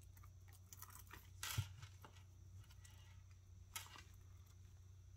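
Near silence with faint handling sounds of a small leather wristlet with a metal chain strap and paper tag: a few light clicks and rustles, the loudest about one and a half seconds in and another sharp click near four seconds, over a faint low hum.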